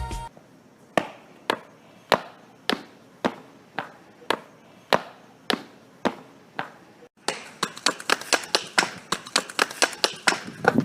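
A series of sharp, evenly spaced knocks, like chopping on a board, about two a second. After a brief pause about seven seconds in, they come faster, about four a second.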